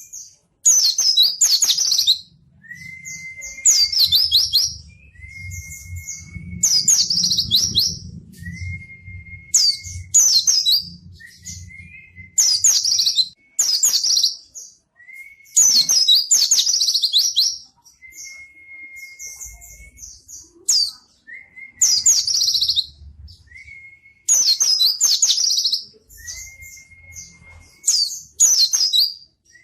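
Pleci (white-eye) singing in full 'gacor' song. It repeats a phrase every two to three seconds: a thin, steady whistle, then a loud, rapid, very high twittering burst.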